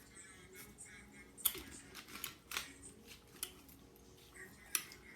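Eating sounds: a few sharp mouth clicks and smacks of chewing, spread out over several seconds.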